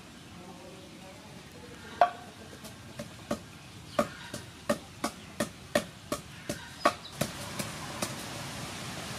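Wooden pestle pounding in a large wooden mortar: a steady run of knocks, two to three a second, beginning about two seconds in and stopping near the end.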